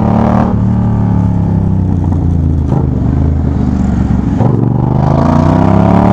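Yamaha MT-07's 689 cc crossplane parallel-twin engine revving through a Jeskap GP3 sport exhaust with the dB killer removed. The revs drop back and run low and uneven through the middle, with a couple of short blips, then climb again near the end.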